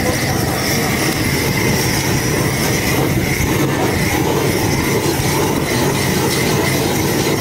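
Handheld gas blowtorch running in a steady rushing hiss as it sears ground meat in a wok, flames flaring up from the pan, with a thin steady whistle above the noise.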